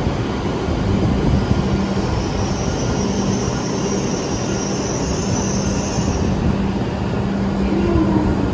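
E7 series Shinkansen train at a station platform: a steady rumble and hum with a steady low tone that breaks off now and then, and a brief rising tone near the end.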